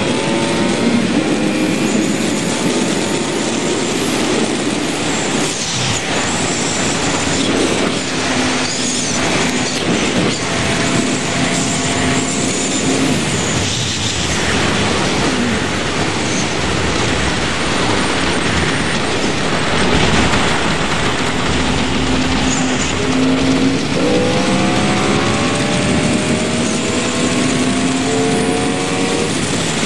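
Yamaha R1 sportbike's inline-four engine heard onboard at highway speed under heavy wind rush on the microphone. Its pitch climbs in rising runs as it accelerates hard through the gears, most clearly near the end.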